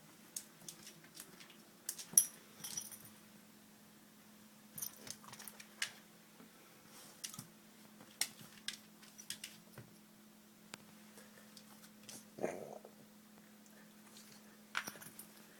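Chihuahua/Italian Greyhound mix dog moving about after eating, making scattered light clicks and clinks, the sharpest about two seconds in, with one short, softer low sound about twelve seconds in.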